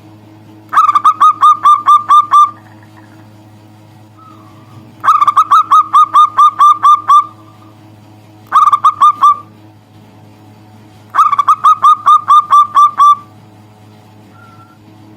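Zebra dove (perkutut) cooing: four loud bursts of quick, evenly repeated coo notes, each lasting a second and a half to two seconds, with a few seconds between them. A steady low hum runs underneath.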